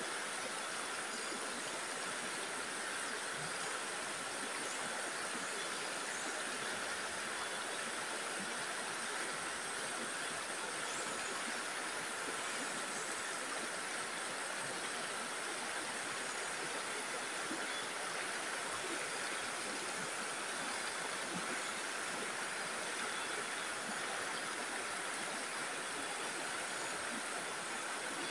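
Stream water rushing over rocks, a steady, even sound with no change in level.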